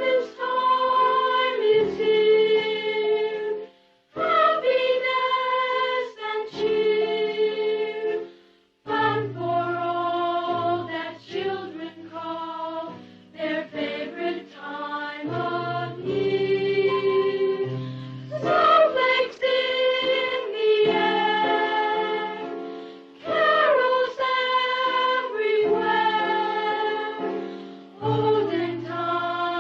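Choir singing a Christmas song in phrases of a few seconds, with brief breaks about four and nine seconds in.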